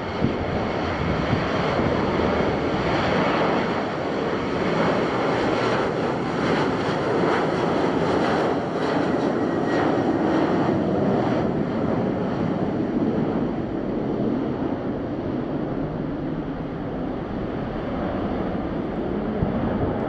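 Boeing 737-800 CFM56 turbofan engines at takeoff power through the takeoff roll, a steady loud rush with a faint whine on top. Gusts of wind buffet the microphone, strongest in the middle.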